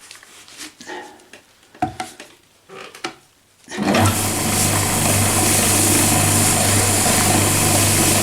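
A few light handling clicks and knocks, then about four seconds in an electric wood lathe switches on and runs steadily with a low hum and a whir.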